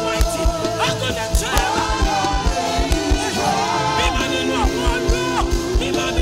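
Live gospel worship music: a woman singing lead into a microphone over a band with a steady drumbeat.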